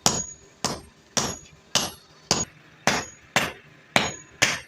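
Blacksmith's hand hammer striking iron on an anvil in a steady rhythm, about nine blows a little over half a second apart. Some blows carry a short, high metallic ring.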